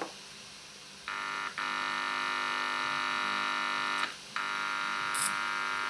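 Buzzing hum from the clock radio's loudspeaker, picked up as the soldering-iron tip touches the circuit board and amplified by the radio's audio stage. It comes in about a second in, drops out briefly just after and again around four seconds, then returns. The buzz shows the audio amplifier is working.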